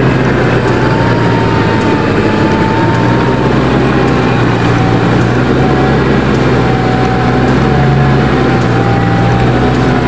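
Toyota Land Cruiser's engine running steadily at low revs as the truck crawls through deep mud, with a thin whine above the engine note.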